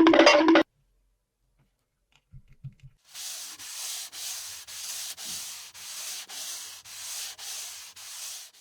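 Rhythmic scraping or rubbing, about two strokes a second, starting about three seconds in after a short jingle cuts off.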